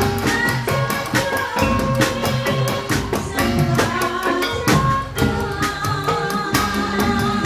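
Live Javanese incling dance accompaniment: drums and percussion strike a steady rhythm under ringing metal tones, with a singer's wavering voice over the top.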